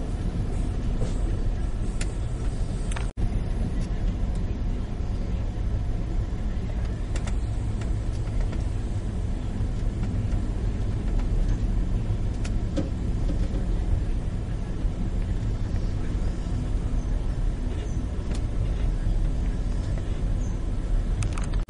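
Steady low rumble of a moving Amtrak California Zephyr passenger car running along the track, heard from inside the car. A few faint clicks are heard, and the sound cuts out for an instant about three seconds in.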